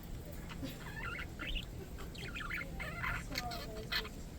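Budgerigars chattering softly in short chirps and warbles, in scattered bursts over a steady low background hum.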